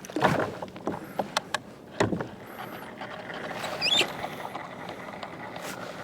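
Knocks, clicks and splashy rustling of gear being handled on a fishing kayak at the water, with a few short rising squeaks about four seconds in.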